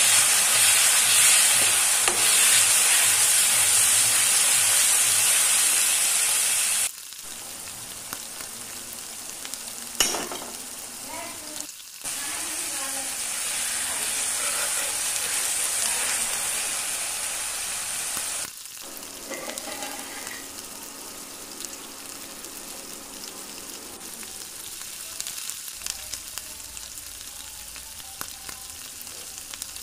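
Onion-and-spice masala frying in mustard oil in a metal wok, sizzling while a spoon stirs and scrapes through it. The sizzle drops suddenly about seven seconds in, comes back louder about twelve seconds in, and drops again about eighteen seconds in.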